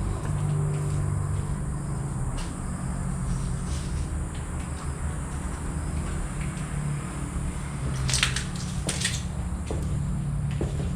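Footsteps crunching over debris, with scattered crackles and two sharper crunches about eight and nine seconds in, over a steady low rumble.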